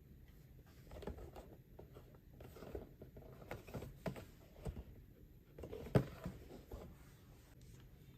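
Plastic Kamen Rider Geats Mark 2 toy buckle being handled, giving scattered soft clicks and taps with one sharper click about six seconds in. The buckle plays no electronic sound effect, only the noise of its plastic parts.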